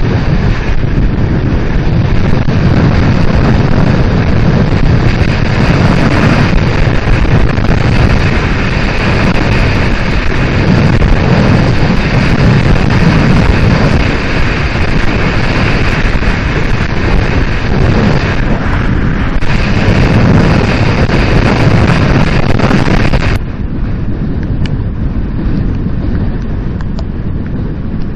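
Motorcycle riding at speed, picked up through an action camera's external microphone under a furry wind muff: a loud, steady rumble of wind buffeting mixed with engine and road noise. Near the end the sound suddenly becomes quieter and duller.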